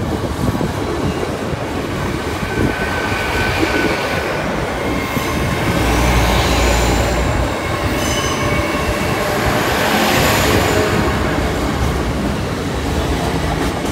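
A train passing over a level crossing, its wheels squealing on the rails in high, wavering tones over a steady rolling noise. A deeper rumble swells about six seconds in.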